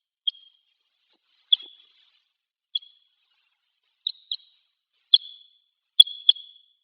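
Red crossbill giving short, sharp calls, singly and in quick pairs, about eight over several seconds.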